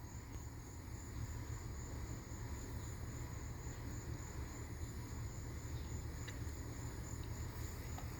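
Insects singing a steady, high, slightly pulsing trill, with a low rumble underneath.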